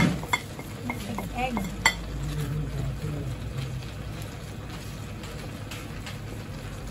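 Wooden spatula stirring and scraping pancit noodles around a stainless steel wok, with several sharp knocks against the metal and plate in the first two seconds, the loudest about two seconds in, over a light frying sizzle.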